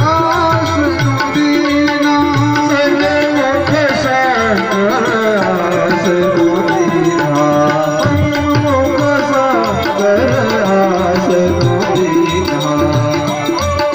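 Indian devotional song: a voice singing a melody that bends in pitch, over steady tabla drumming.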